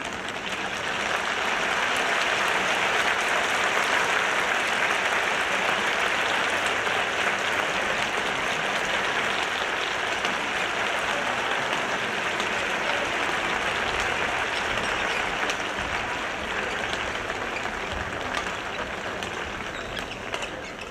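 Crowd applauding, building up about a second in, holding steady, and fading near the end.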